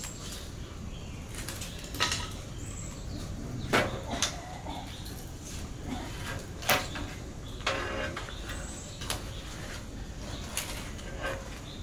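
Irregular sharp clicks and knocks from sticks of firewood being pushed into a small wood-fired clay stove and from the fire crackling under a cooking pot.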